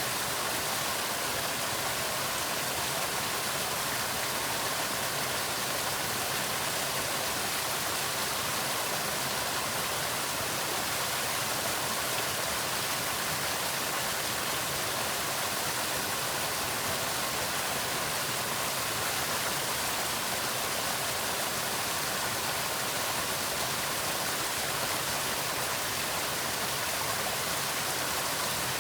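Waterfall: water pouring steadily in an even, unbroken rush.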